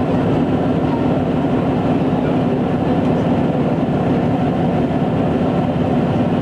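Steady mechanical rumble with a low hum inside a tourist submarine's passenger cabin, from the submarine's machinery as it cruises underwater.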